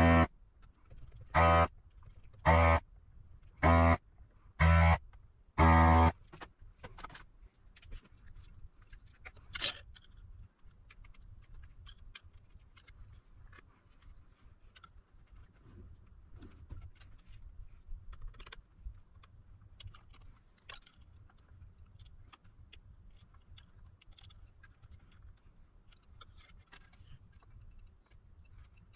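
An electronic buzzer gives six short, buzzy beeps about a second apart in the first six seconds. After that there are only faint clicks and light handling sounds.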